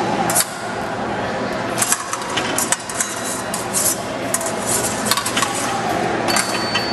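Épée blades clashing: an irregular run of sharp metallic clinks, thickest in the middle. Near the end a steady high electronic beep starts, the scoring machine signalling a touch.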